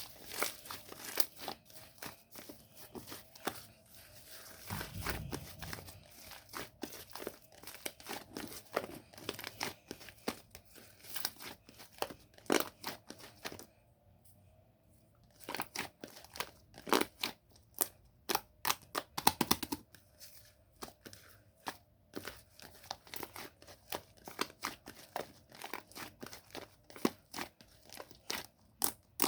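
Hands squishing and stretching a bubbly slime, its trapped air popping and crackling in quick, irregular clicks, with a brief pause about halfway through.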